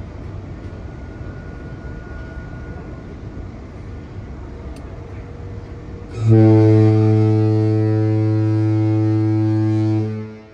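A cruise ship's horn sounds one long, deep, steady blast, starting about six seconds in and cutting off about four seconds later.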